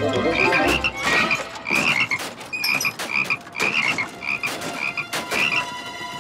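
Many cartoon frogs croaking, short high croaks repeating about twice a second, mixed with scattered knocks and clicks; the croaking thins out near the end.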